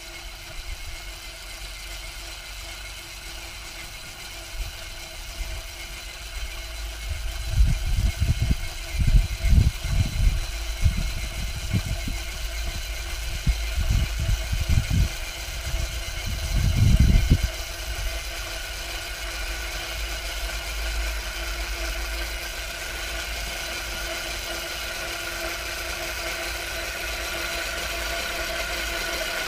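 Homemade electric Krot cultivator, its motor run through a frequency inverter, tilling ploughed ground with rotary tines: a steady electric whine with several tones over a low churning rumble, slowly growing louder as it approaches. Irregular low thumps come between about 8 and 17 seconds in.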